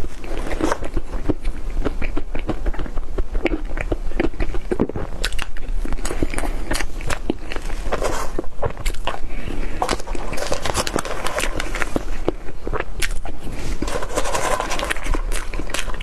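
A person chewing and biting cake up close, with many small sharp mouth clicks and smacks in quick, irregular succession.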